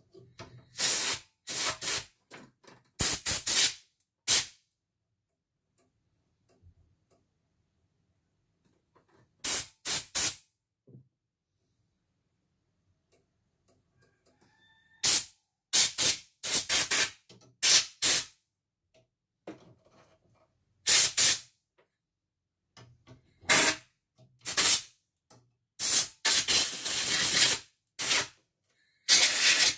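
Compressed air hissing in repeated short bursts, about a dozen, each a fraction of a second to two seconds long, blown into the open mechanism of a CNY computerised embroidery machine. The longest burst comes near the end.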